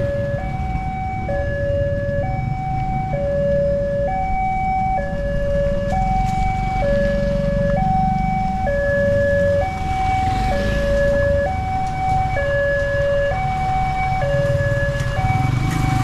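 Railway level-crossing warning alarm sounding a steady two-tone high-low signal, switching pitch about once a second, which warns that the barrier is closing for an approaching train. Road traffic rumbles underneath.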